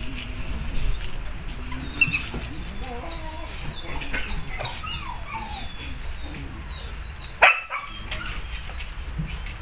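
A dog whimpering in short, high whines that slide up and down in pitch, with one sharp knock about seven and a half seconds in.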